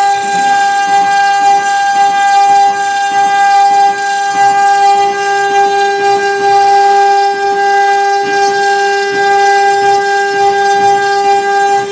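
Chinese 3 kW water-cooled CNC router spindle running with a steady whine while its cutter engraves MDF, with a rough, fluttering cutting noise underneath.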